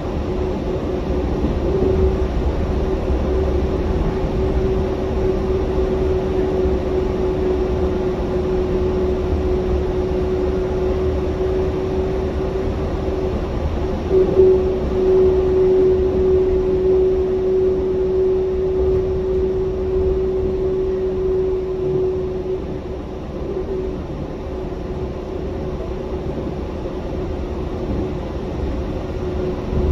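Yurikamome rubber-tyred automated guideway train running between stations, heard from inside the front car: a steady rumble from the running gear with a steady motor whine over it. A brief bump comes about halfway, and the whine fades out about three-quarters of the way through.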